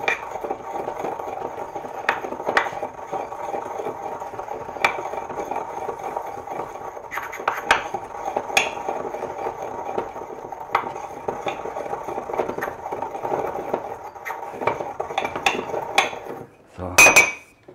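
Caraway seeds being ground with a pestle in a small ceramic mortar: scraping and grinding with irregular sharp clicks of the pestle against the porcelain, over a steady hum. A louder clatter comes near the end.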